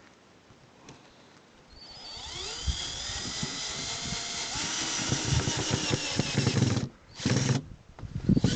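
Power drill-driver driving self-tapping screws: the motor spins up with a rising whine about two seconds in, runs for about five seconds and stops sharply, then gives a short burst and starts again near the end.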